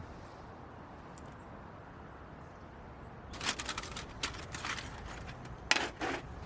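A run of short clattering and rustling noises, like gear being handled, starting about halfway through and loudest a little before the end, over a steady low background.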